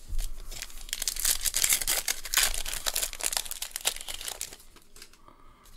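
Foil wrapper of a 2021 Bowman baseball card pack crinkling and tearing as it is opened by hand, with a dense crackle that dies down about four and a half seconds in.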